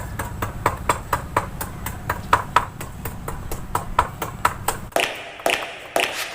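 Rapid, even tapping, about six sharp knocks a second, typical of a tool striking concrete or hollow block during masonry work, over a low steady hum. About five seconds in the tapping stops and a few louder, separate knocks follow.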